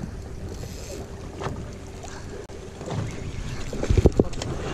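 Wind rumbling on the microphone on a small fishing boat, with a faint steady hum in the first half. A quick cluster of sharp knocks comes about four seconds in.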